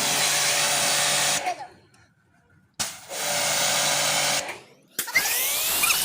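A motor-driven machine running with a loud hissing rush, switched off and on: it cuts out about a second and a half in, runs again for about a second and a half, stops, then starts again near the end with a rising whine as it spins up.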